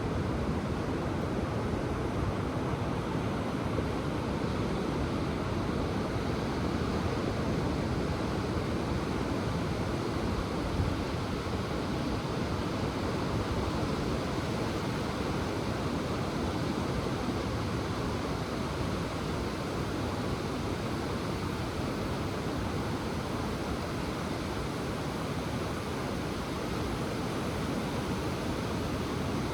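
Ocean surf washing onto the shore, heard as a steady, even rush of noise with no distinct wave crashes standing out.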